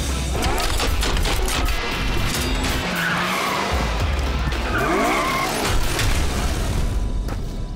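Cartoon vehicle sound effects over background music: engines revving with rising pitch and tyres skidding as the machines set off, on a steady low engine rumble.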